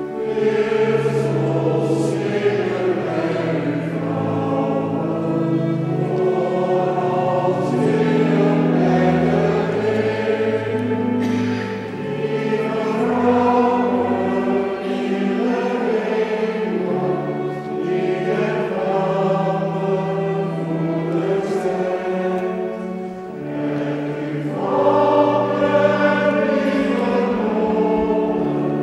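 Congregation singing a hymn together in a church, in long held notes that carry on without a break.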